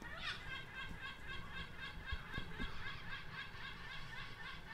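A bird calling a rapid, steady run of short laughing notes, several a second.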